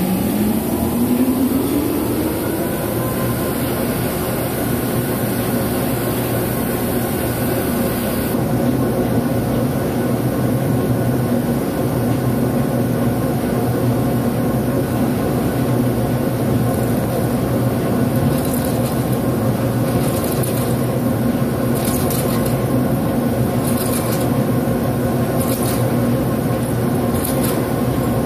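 Vertical turning lathe's table drive spinning up, its hum rising in pitch over the first few seconds and then running steady. From a little past halfway, a carbide insert rough-turning the cast-steel part adds a short scraping burst about every two seconds, once per turn of the table at 30 rpm.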